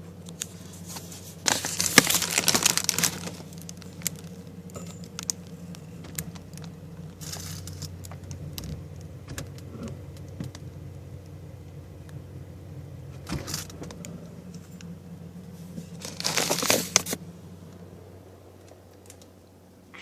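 Small hard objects rattling and clinking as they are handled in a freezer, with a louder clattering spell near the start and another near the end. A steady low electrical hum runs underneath.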